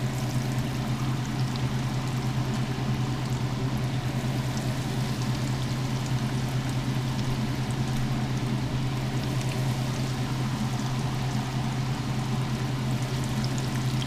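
Battered catfish pieces sizzling and crackling in hot canola oil in a cast-iron skillet, over a steady low hum.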